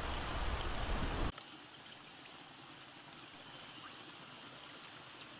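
Storm sound effect of heavy rain that cuts off suddenly about a second in, leaving a faint, steady sound of water trickling and lapping.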